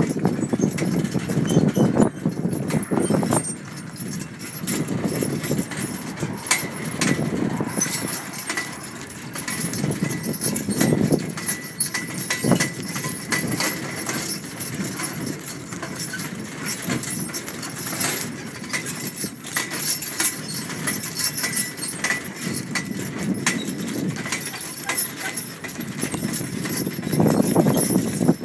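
A two-horse team's hooves clip-clopping on soft dirt as they pull a wagon, with the rattle of harness and wagon.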